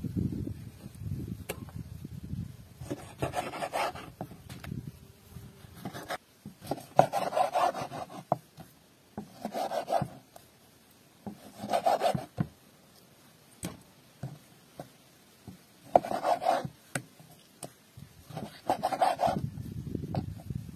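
Kitchen knife slicing through raw liver and drawing across a wooden cutting board, in separate rasping strokes every two to three seconds.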